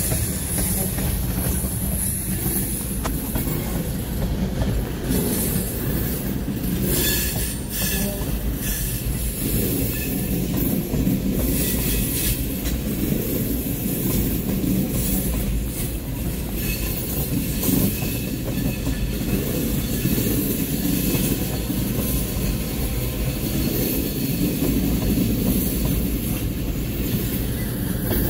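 Norfolk Southern coal hopper cars rolling steadily past: a continuous rumble of steel wheels on rail, clacking over the joints, with intermittent high-pitched wheel squeal.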